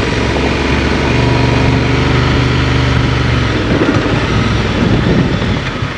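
Adventure motorcycle engine running at steady revs on a gravel descent, over a constant rush of tyre and wind noise; about three and a half seconds in, the steady engine note drops away into a rougher, uneven rumble.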